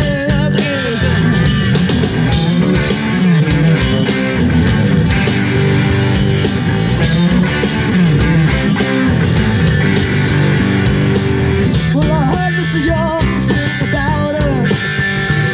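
Live rock band playing: electric guitars and bass over a drum kit, with cymbals keeping a steady beat.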